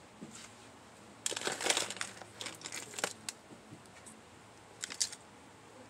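Plastic packaging of nail products crinkling and rustling as hands rummage through a box and pick up a plastic case of false nail tips, in irregular bursts, the loudest about a second and a half in and a short one near the end.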